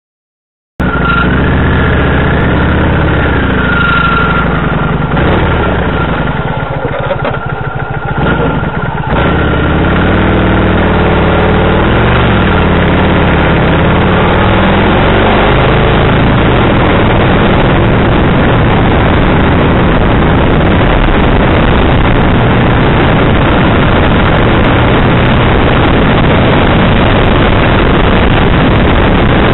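Kawasaki VN1500 V-twin motorcycle being ridden, heard close from a bike-mounted camera. The sound cuts in suddenly about a second in, the engine note rising and falling for several seconds, then from about nine seconds a steady loud rush of engine and wind at road speed.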